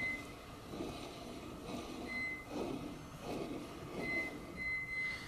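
Rifle rest's cast-iron elevation hand wheel being turned on its Acme-threaded column, a rhythmic rubbing about once every 0.8 s, with short high squeals several times.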